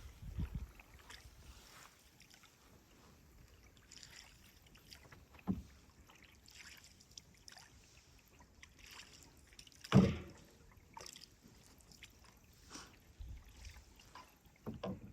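Canoe being paddled: quiet paddle strokes and water dripping, with sudden knocks of the paddle against the canoe's hull, the loudest about ten seconds in.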